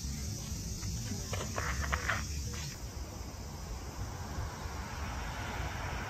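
Insects buzzing high and steady over a low rumble, with a few short chirps about a second and a half in. The buzzing cuts off about halfway through, leaving a softer hiss.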